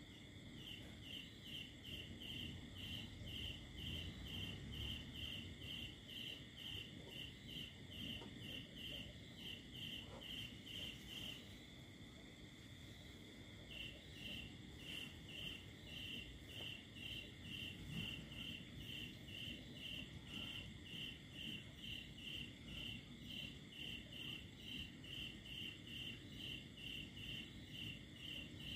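Crickets chirping: one rings out in even chirps about twice a second, falls silent for about two seconds just before the middle, then resumes. A steady, unbroken insect trill runs behind it.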